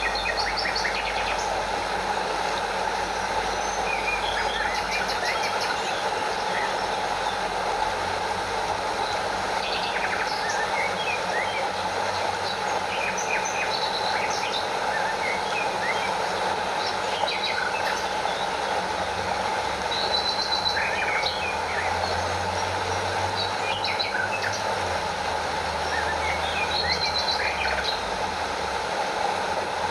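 Steady rushing of a stream and small waterfall, with many short bird chirps scattered over it.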